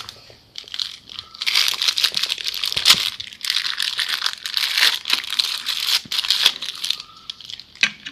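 Thin clear plastic wrapping crinkling and tearing as a soda-maker bottle cap is unwrapped from it by hand. It comes on and off for several seconds, with sharp crackles.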